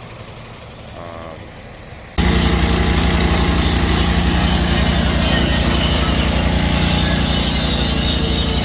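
An engine running steadily and loudly, cutting in abruptly about two seconds in, after a quieter stretch with a brief voice.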